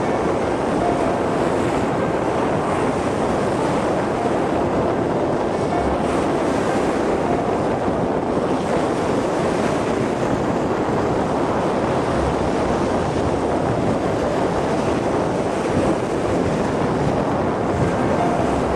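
Choppy bay waves breaking and washing up a sandy beach in a steady wash of surf, with wind buffeting the microphone.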